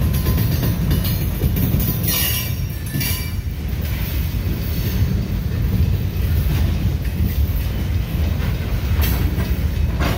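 Freight train gondola cars rolling past on the rails, a steady low rumble of wheels and trucks. Brief bursts of brighter, higher-pitched noise come about two seconds in and again near the end.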